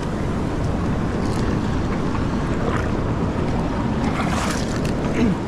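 Ocean surf rushing steadily along the shore, mixed with wind buffeting the microphone.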